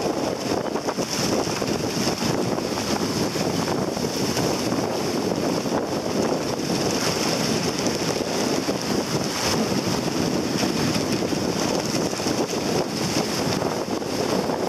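Strong wind buffeting the microphone over a steady rush of choppy sea and spray, with no let-up.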